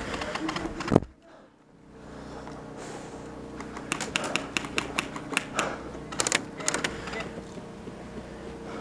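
Airsoft guns firing: sharp cracks, single and in quick runs, mostly in the middle of the stretch, with one loud knock about a second in.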